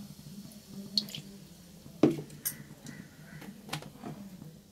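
A few sharp ticks and one louder knock about two seconds in, around a steel kadai with oil and mustard seeds on a gas stove, over a steady low hum.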